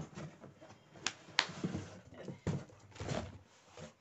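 Cardboard packaging being handled as parts are lifted out of a mixer grinder's box: two sharp knocks a little over a second in, then rustling and scraping of cardboard.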